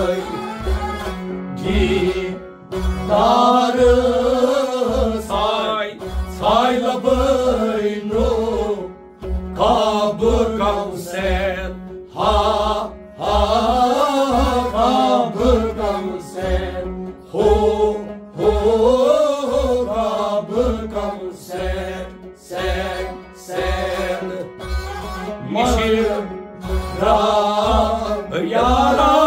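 A male voice singing a Kashmiri Sufi song, accompanied by a clay pot drum (nout) struck with both hands in a steady beat of about two strokes a second, over a steady held drone.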